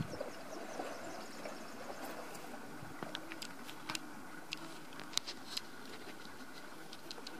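Quiet outdoor background with a steady faint hiss, a quick run of faint high ticks in the first second, and scattered sharp clicks a few seconds in.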